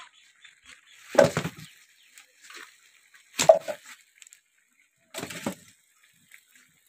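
Three short bursts of knocking and scraping, about two seconds apart, as burning firewood is pulled out from under the pot on a clay wood-fired stove to take the heat off before the rice is left to steam.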